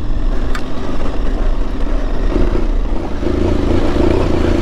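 Aprilia Tuareg 660's parallel-twin engine running steadily as the motorcycle rides a dirt trail at low speed. Its note grows stronger about halfway through as the bike picks up speed.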